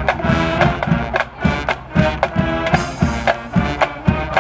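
High school marching band playing in the stands: saxophones, trumpets and trombones over a steady drum beat.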